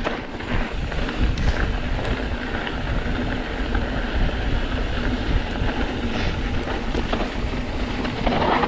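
Mountain bike riding over a rocky trail: a continuous rumble and rattle of tyres and frame over rocks.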